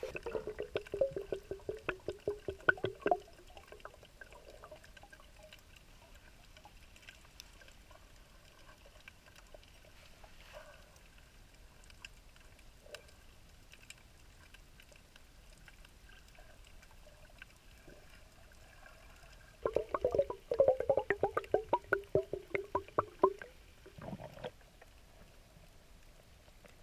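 Gurgling, bubbling water in two spells of rapid pulses a few seconds each, one at the start and one about twenty seconds in, with a short burst just after.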